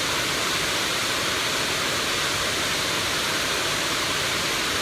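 Waterfall rushing, a steady even hiss of falling water.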